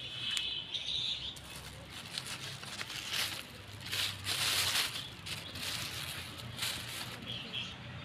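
Thin plastic bag rustling and crinkling as a plastic wrapper is pushed into it by hand, in irregular swells that are loudest in the middle.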